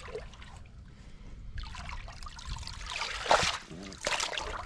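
Pool water sloshing and splashing as hands grope under submerged stones, in a few surges, loudest about three seconds in.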